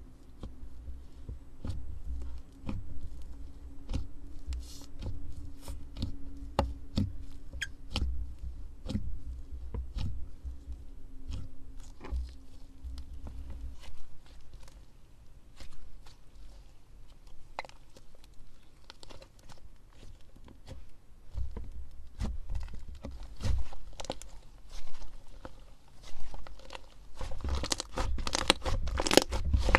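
Slime being handled: a run of irregular small clicks and pops, turning into dense crackling near the end.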